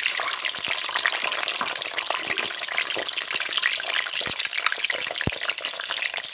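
Hot oil sizzling and crackling around peeled hard-boiled eggs frying in a kadai: a dense, steady sizzle with many small pops.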